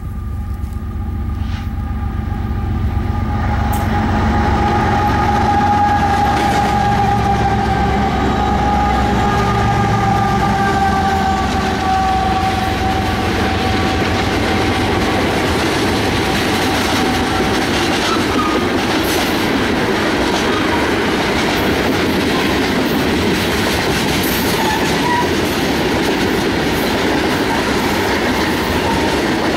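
Ferromex diesel-electric freight train passing close by. The locomotives' engine rumble and a steady whine that slowly falls in pitch fade over the first half. The dense rolling clatter of freight and tank cars on the rails takes over and continues.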